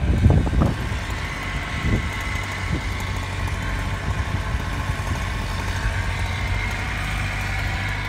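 An engine idling steadily, after a few rough low thumps in the first second.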